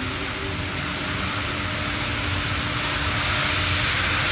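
Union Pacific Big Boy 4014 steam locomotive moving off slowly, steam hissing from its open cylinder cocks over a low rumble, the hiss getting louder.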